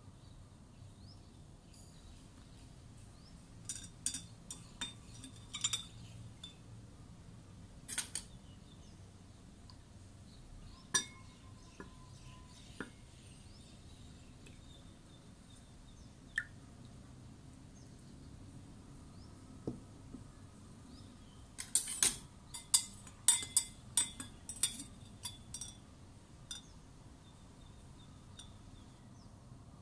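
Metal spoon and glassware clinking: scattered light clinks of glass on glass and glass on the tabletop, then a quick run of clinks about two-thirds of the way through as the spoon stirs in the drinking glass.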